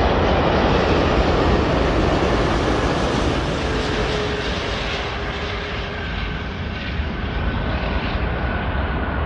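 Jet noise from a Qantas Airbus A380's four Rolls-Royce Trent 900 turbofans as the airliner touches down and rolls out on the runway: a loud, steady rush over a deep rumble that eases off slightly after about four seconds.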